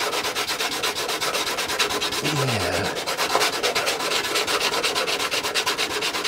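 Hand sanding block with coarse sandpaper scrubbing paint off a car body panel in rapid, even back-and-forth strokes, stripping a dented area toward bare metal ahead of body filler.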